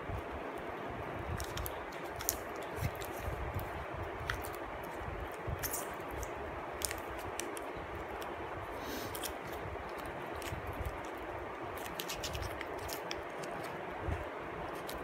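Sony MDR-ZX110A plastic on-ear headphones being handled and turned over: scattered light clicks, scrapes and rustles over a steady background hiss.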